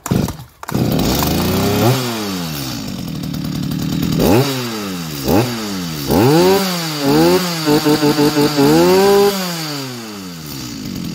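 New Stihl MS 210 two-stroke chainsaw starting from a pull of the cord on the throttle lock, running up high, then dropping to idle. It is then revved with the trigger: several single revs, a quick string of short blips and one longer rev, before settling back to a steady idle.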